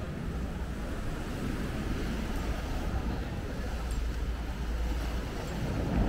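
Wind rumbling on the microphone over the steady wash of sea waves, a low, even noise.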